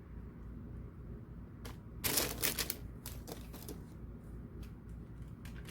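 Quick clicks and rustling from hands working on a baking sheet, a dense flurry about two seconds in, then a few lighter taps, over a steady low hum.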